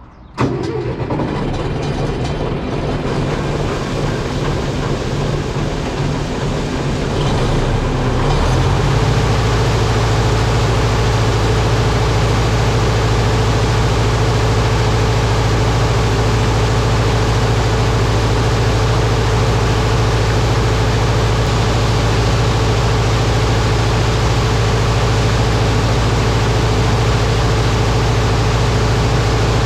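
Engine running the auger that has just been fitted with a replacement belt: it starts abruptly and runs steadily, and about eight seconds in its sound steps up and settles into a louder, steady hum as it comes up to working speed.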